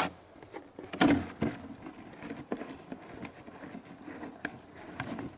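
Irregular rustling with scattered sharp clicks and taps, the loudest about a second in.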